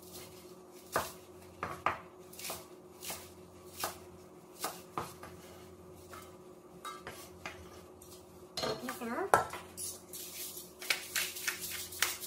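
A cleaver chopping scallions on a wooden cutting board, in single knocks about a second apart, then clattering as the chopped pieces are scraped off into a stainless steel bowl. Near the end come quick small clicks of a pepper mill being twisted.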